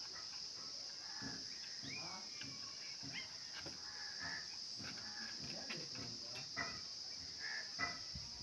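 Birds chirping in short, scattered calls over a steady high-pitched insect drone.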